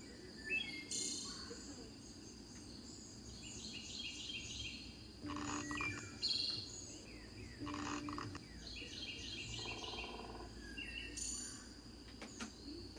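Birdsong: several birds chirping and calling over one another, many short high chirps with a few louder calls.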